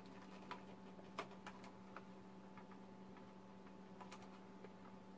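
Faint, irregular small clicks of pliers and wire being handled at a toy RC car's circuit board, over a steady low hum.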